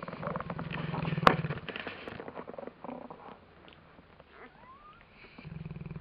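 Neapolitan mastiff snoring: a rattling snore in the first two seconds, a quieter gap, then the next snore starting near the end. A sharp click about a second in is the loudest sound.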